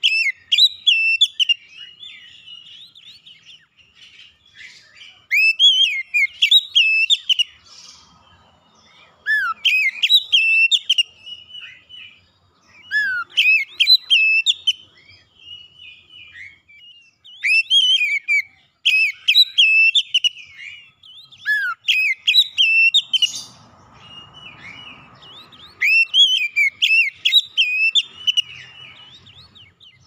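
Male oriental magpie-robin singing loud bursts of rapid whistled phrases full of quick rising and falling notes, one burst every few seconds, with softer twittering between them.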